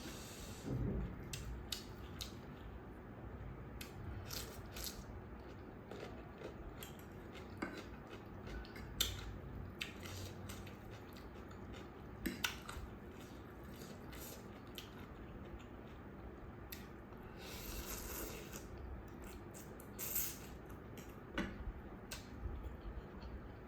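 Someone eating curry noodles: scattered clicks and taps of cutlery against a dish.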